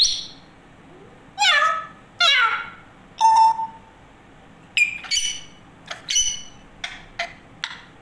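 African grey parrot calling: a string of short whistles and squawky calls, several sliding down in pitch, one held whistle a little after three seconds in, and a quick run of brief sharp chirps near the end.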